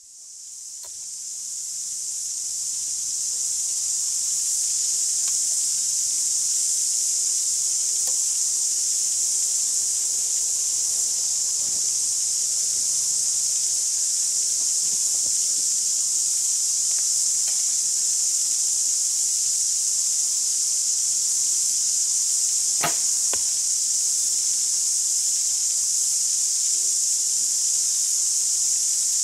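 Steady, high-pitched insect chorus that fades in over the first few seconds. About 23 seconds in comes a single sharp snap with a fainter click half a second later, the bow being shot at a rabbit.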